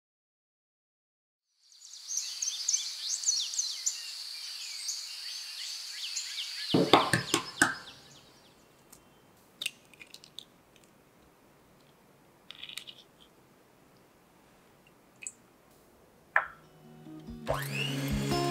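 Birds chirping, then a hen's egg cracked against a glass bowl, a few sharp knocks around seven seconds in followed by small shell clicks as it is pulled open. Near the end an electric hand mixer starts up in the bowl.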